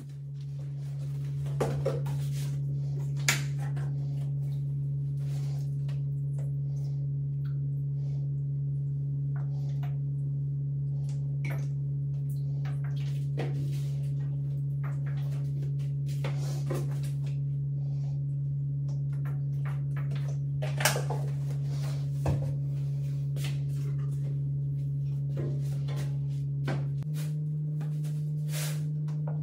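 A steady, sustained low drone note with faint overtones fades in and holds one pitch, then steps slightly higher near the end. Scattered light clicks and knocks sound over it.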